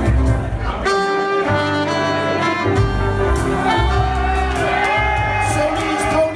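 A small jazz band playing live: saxophones and a trumpet over keyboard and a bass line. The horns hold long notes about a second in, then play wavering notes in the second half.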